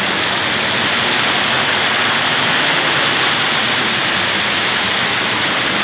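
Water cascading over rocks, a steady, loud rush close to the microphone.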